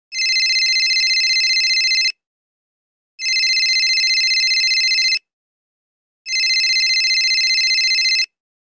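Telephone ringing: three electronic rings of about two seconds each, a second apart.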